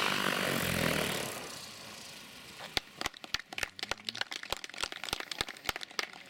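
Align T-Rex 600 electric RC helicopter's rotor winding down after landing: a loud whoosh that fades out over the first two seconds, followed by a run of irregular sharp clicks.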